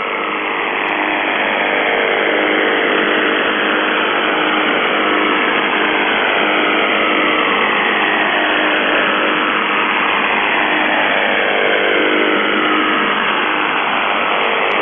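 UVB-76 'The Buzzer' on 4625 kHz heard through a shortwave receiver: a steady buzzing tone under dense static hiss, crossed by slow falling sweeps. It swells in over the first second after the voice message stops.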